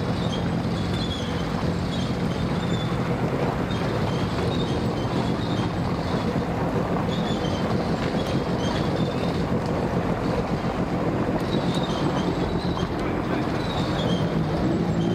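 Yamaha WaveRunner personal watercraft engines running at idle or low speed, a steady drone, with short high chirps recurring every second or two.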